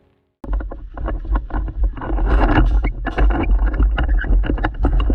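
Loud outdoor field audio cuts in suddenly about half a second in: a heavy wind rumble on the microphone with a dense scatter of sharp clicks and knocks.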